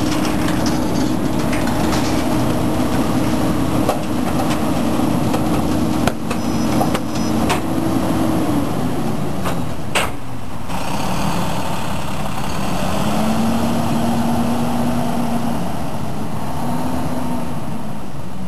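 Diesel engine of a Peterbilt 320 garbage truck running at a steady raised speed while the Leach 2R III rear loader works, with metal clanks and bangs around six and ten seconds in as the dumpster is handled. Later the truck pulls away, the engine rising in pitch twice as it accelerates.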